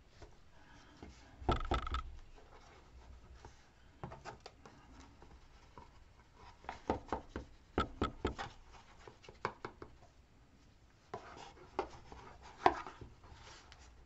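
Crafting handling noise: irregular taps, knocks and rubbing as glued paper is pressed and smoothed against the inner wall of a box with a flat smoothing tool. There is a thump about one and a half seconds in, a quick run of taps in the middle, and a sharp knock near the end.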